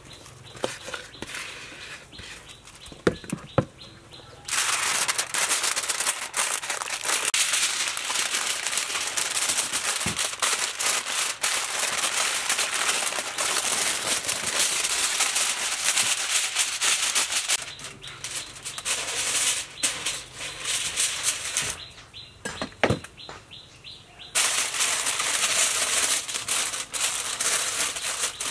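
Sheet of aluminium foil being pulled out and handled, a loud, dense crinkling and rustling. It starts about four seconds in after a few soft knocks, stops for a few seconds about two-thirds through, and starts again near the end.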